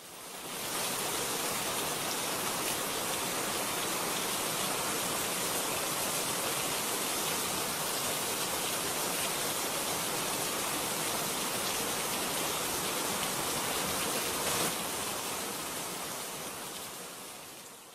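Steady rain, an even hiss that fades in over the first second and fades slowly away over the last few seconds.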